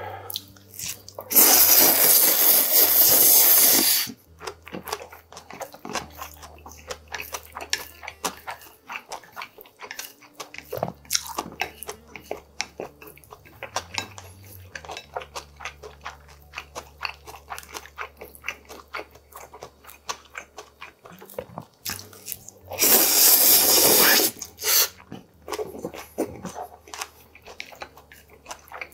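Close-miked eating of bibimmyeon, Korean spicy cold noodles: two long, loud slurps of noodles, one about a second in and another about two-thirds through, with wet chewing and smacking clicks in between.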